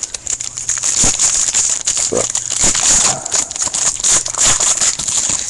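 Foil trading-card pack wrapper crinkling and tearing as it is ripped open by hand: a dense, loud crackle throughout.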